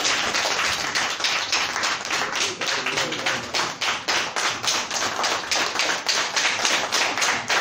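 A group of people applauding: many quick hand claps overlapping throughout.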